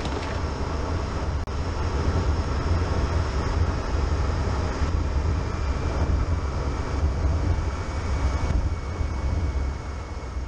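Car driving along a road: a steady low rumble of engine, tyres and wind noise, with a faint steady whine joining about halfway.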